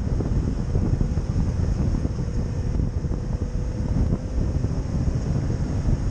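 Steady low rumbling noise, with a faint steady hum above it.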